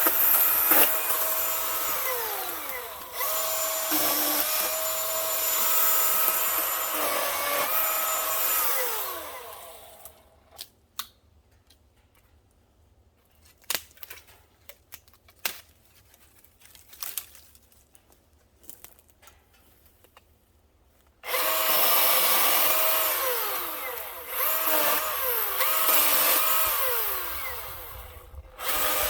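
Milwaukee M18 16-inch battery chainsaw running and cutting jack pine, its electric whine sagging in pitch as the chain bites, for about ten seconds before it stops. A quiet stretch of scattered clicks and knocks follows, then the saw runs and cuts again for about seven seconds, pauses briefly near the end and starts once more.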